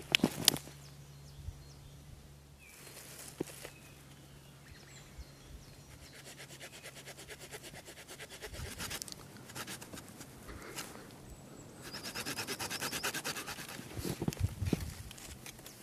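A branch being cut from a snow-covered brush pile with a knife: irregular scraping cuts into the wood, twigs rustling and snapping, with a quick run of fast rhythmic strokes a few seconds before the end.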